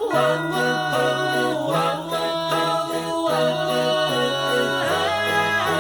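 Festive background music with wordless sung vocals over a bass line.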